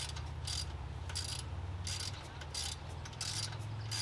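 Ratchet wrench clicking in repeated short strokes, about six in four seconds, as it backs a bolt out of the alternator mounting on a 1964 Chevrolet Impala SS.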